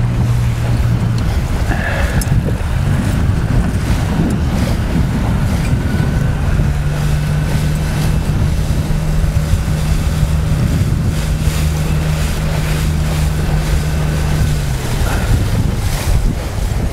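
Umpire motorboat's engine humming steadily under heavy wind buffeting on the microphone and the wash of choppy water; the engine note falls away about fifteen seconds in.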